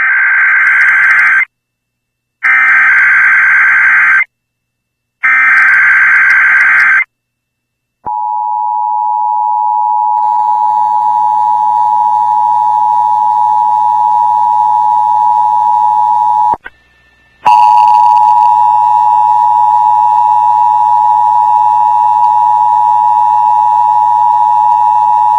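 Emergency Alert System test alert: three short bursts of warbling digital header tones, each about a second and a half with a second of silence between, then the EAS two-tone attention signal, a steady dual-pitch tone that cuts out for about a second partway through and then resumes.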